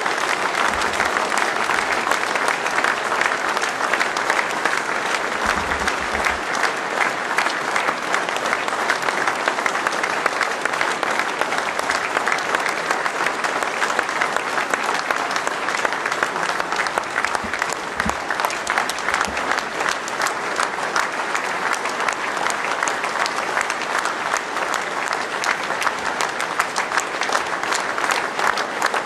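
Large crowd applauding, dense and sustained clapping with no letup: an ovation at the end of a speech.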